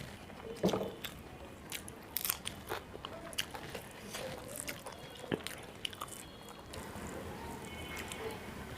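Close-up eating sounds of a person eating rice and fish curry: irregular bites and chewing with small crunchy clicks, most of them in the first few seconds.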